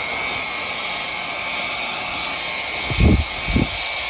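Cordless handheld car vacuum with a brushless motor running at a steady high whine while sucking up debris. Two dull thumps come near the end.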